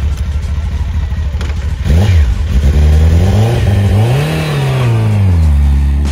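Suzuki Hayabusa's inline-four through a Yoshimura exhaust, idling steadily, then revving up and down several times from about two seconds in as the bike pulls away, settling to a steadier note near the end.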